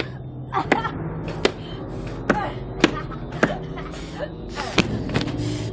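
A person being struck over and over in a film fight: sharp thuds of blows about every half second to second, with short grunts between them, over a low steady hum.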